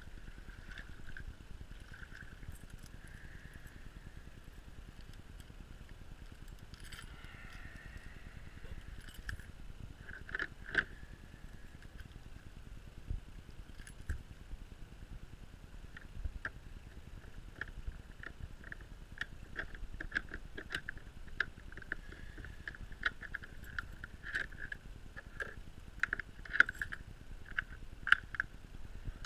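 Metal clicks, knocks and scrapes of hands working a padlock and hasp on a wooden shed door, coming thicker over the last ten seconds. Under them is a steady low rumble, and a high chirping comes and goes.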